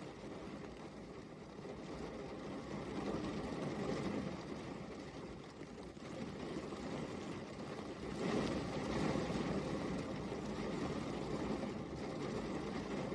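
Steady rain falling, an even hiss that swells a little about eight seconds in.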